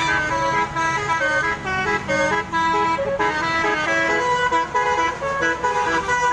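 Basuri-type multi-trumpet bus horn ('telolet') playing a fast, continuous tune of changing notes, with a vehicle rumble underneath.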